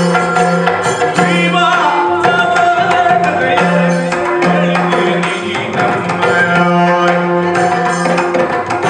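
Yakshagana music: maddale and chende drums beating a fast rhythm over a steady drone, with the bhagavata's sung line sliding in pitch about two seconds in.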